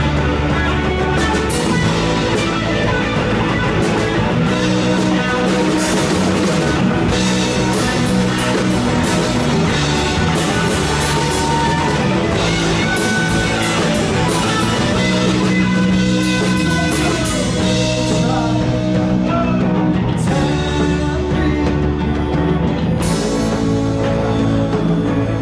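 Rock band playing live: electric guitars over a drum kit, loud and without a break.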